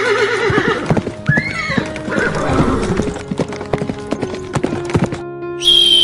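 A horse whinnies with a trembling call, then again briefly about a second and a half in, over rapid clattering hoofbeats, with steady background music underneath. The hoofbeats stop a little after five seconds, and a high, slowly falling call starts near the end.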